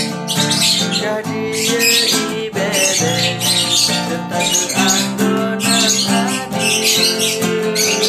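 Acoustic guitar strumming chords while a lovebird chirps and squawks along in quick repeated bursts.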